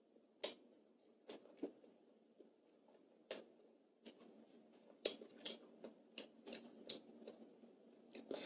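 Faint wet mouth clicks and smacks of a child chewing food, a few scattered ones at first, then a quicker run of them about five seconds in.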